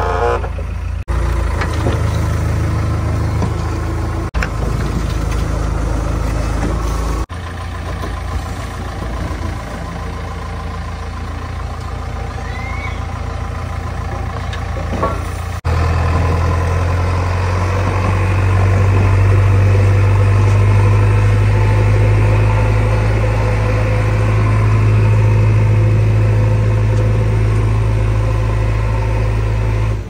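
JCB 3DX backhoe loader's diesel engine running with a steady low hum. The sound changes abruptly a few times, and it runs louder through the second half.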